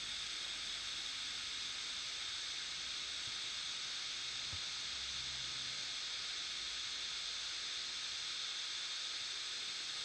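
Steady, even high-pitched hiss with no other sound: the background noise of a phone screen recording.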